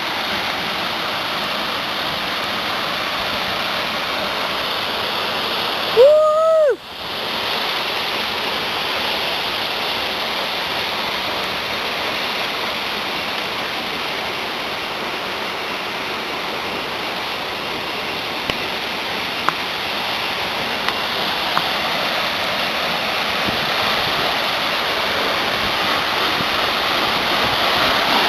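Steady rushing of the Tancak Kembar waterfall, water pouring and splashing without a break. About six seconds in, the rush drops out for half a second and a short tone rises and falls.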